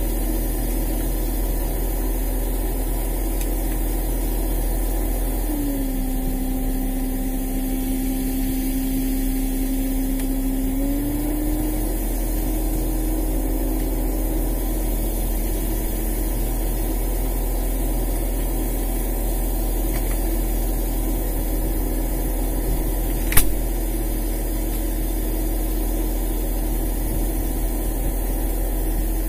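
Steady drone of a longline fishing boat's engine and hydraulic line hauler running; its tone drops lower about six seconds in and rises back about five seconds later. One sharp click late on.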